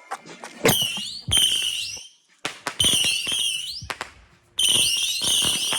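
Whistling fireworks going off in four volleys. Each starts with a sharp bang, followed by several shrill, wavering whistles at once, with brief quiet gaps between volleys.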